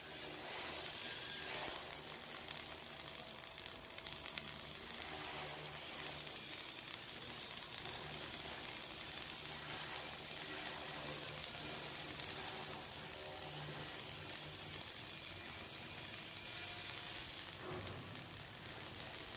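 Flux-cored arc welding on carbon steel plate: the arc strikes right at the start and then burns with a steady, even hiss.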